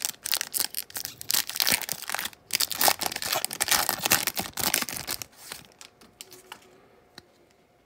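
Panini Prizm football card pack wrappers being torn open and crinkled by hand: a dense, irregular crackling for about five seconds, then it dies away to near quiet with a single small click near the end.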